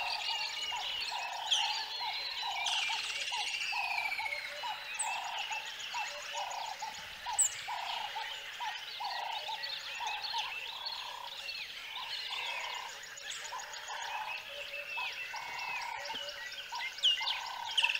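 Nature ambience of many birds chirping and whistling, over a croaking call that repeats steadily about twice a second, like a frog chorus.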